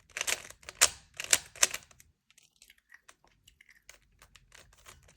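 Plastic 3x3 Rubik's Cube layers being twisted by hand: a quick run of clacks and clicks in the first two seconds, then only faint scattered ticks.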